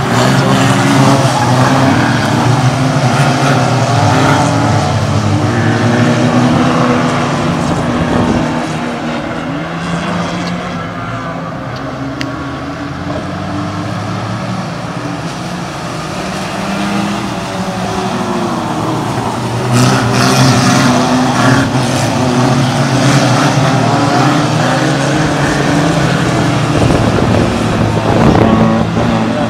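Engines of several banger racing cars running and revving hard as the pack laps the track. The sound dips for a while about a third of the way in and comes back loud about two-thirds of the way through as the cars come round again.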